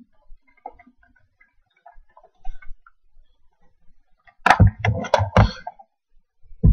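Laptop keyboard keys tapped, picked up by the laptop's own microphone: faint scattered ticks, then a quick run of four or five loud taps about four and a half seconds in.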